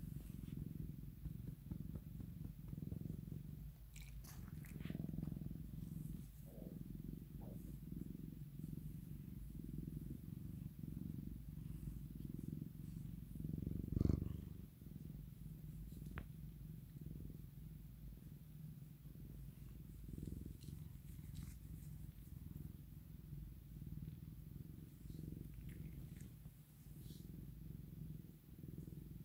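Tabby cat purring steadily at close range while being stroked, with one soft thump about halfway through.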